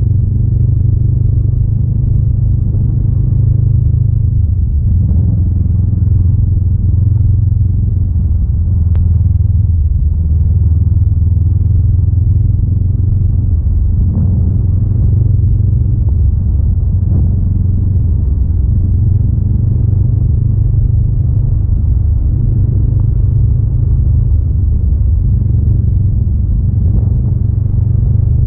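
Honda Rebel 500's parallel-twin engine running under way, heard from the saddle, its pitch stepping up and down several times as throttle and gears change.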